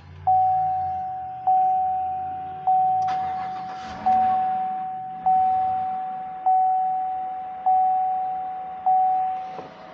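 The truck's dashboard warning chime dings eight times, evenly about a second and a quarter apart, each ding fading away. About three seconds in, a steady mechanical noise joins it, the engine starting and running with its new belts turning.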